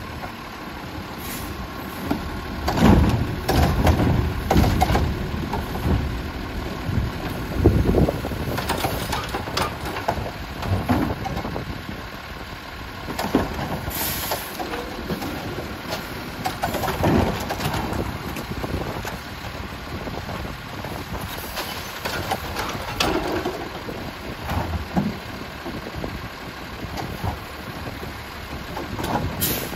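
Heil MultiTask automated side-loader garbage truck working carts at the curb: its engine running steadily, with repeated loud knocks and clatter as the arm grabs, lifts and dumps the carts.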